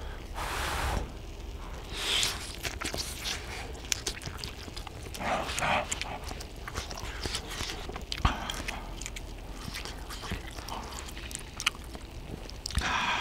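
Close-miked eating of hot Korean fish cake (eomuk) from skewers: wet chewing and biting with small clicks, broken by several short breathy bursts of blowing or sucking in air over the hot food.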